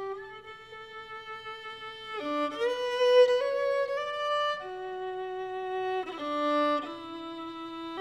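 Background music: a single melody line of long held notes, with a flurry of quicker notes a couple of seconds in and again near the end.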